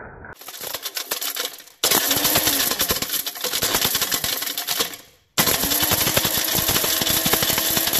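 Personal blender running with a plastic credit card inside, the card's pieces clattering rapidly against the plastic cup. The clatter is quieter at first and gets loud about two seconds in, dies away just after five seconds, then starts again abruptly.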